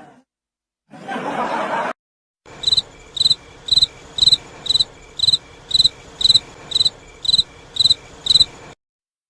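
Crickets chirping sound effect, the 'awkward silence' meme: about a dozen short high chirps, evenly spaced at roughly two a second, over a faint hiss. It is preceded about a second in by a brief burst of voices.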